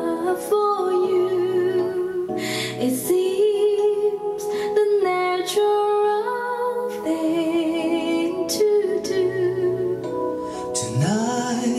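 Slow vocal music: a singer holds long notes with a slight vibrato, moving stepwise over light accompaniment with a few struck accents.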